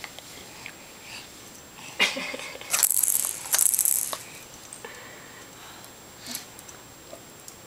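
Rattling in short bursts. A sharp one comes about two seconds in, followed by two louder bursts of under a second each.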